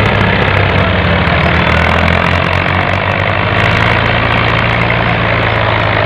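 Tractor diesel engine running steadily and labouring under a heavy load while pulling a fully loaded sugarcane trolley uphill.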